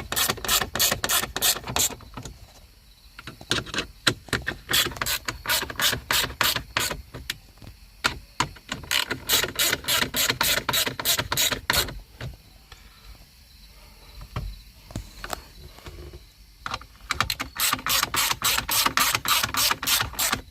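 A hand ratchet clicking in repeated short runs, about four to five clicks a second, as it tightens the small bolts that hold a car's center display screen, with brief pauses between bolts.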